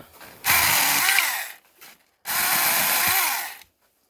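Saker battery-powered mini chainsaw running in two bursts, each a little over a second long and about a second apart, cutting through pine branches.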